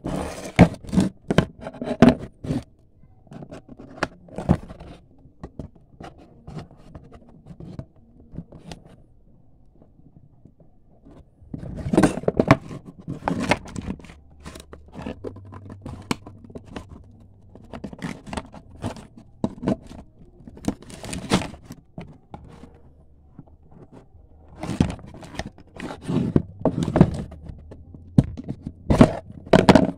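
Cardboard box and clear plastic toy packaging being handled, scraped and cut open by hand: bursts of scraping, crinkling and tearing, with quieter stretches of lighter handling in between.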